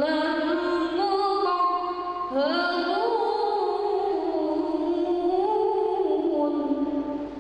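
A boy singing solo and unaccompanied into a microphone, holding long notes and sliding between pitches with ornaments; his voice ends near the end.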